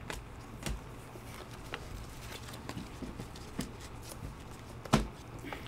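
Trading cards being handled and flipped through by gloved hands: light clicks and rustles of card stock, with one sharper tap about five seconds in.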